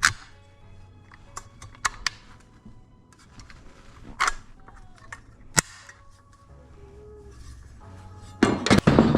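Background music under sharp clicks and knocks of metal hardware and tools being handled on a steel seat bracket, ending in a louder burst of rapid clattering.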